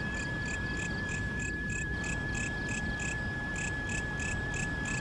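Night insects calling: one holds a steady high whine while a pulsed chirp repeats about three times a second, over low background noise.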